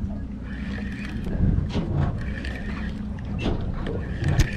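Wind buffeting the microphone over water sounds against a boat, with scattered knocks and clicks as a spinning reel is handled and wound.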